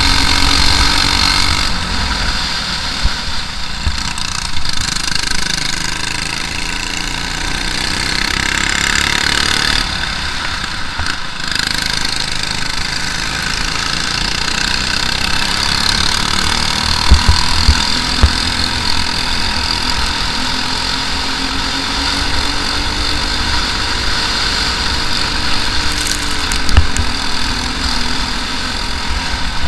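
Briggs & Stratton LO206 single-cylinder four-stroke kart engine running flat out in a race, its revs rising on the straights and falling into the corners. A few sharp thumps come about two-thirds of the way through and near the end.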